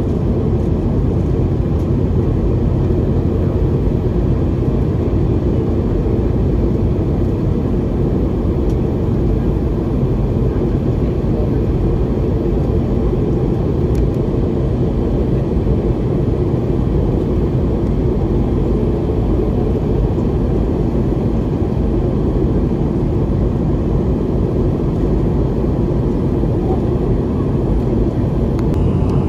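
Steady in-flight cabin noise inside a Boeing 717-200: an even, low rush of airflow and its two rear-mounted Rolls-Royce BR715 turbofan engines, with a faint low hum.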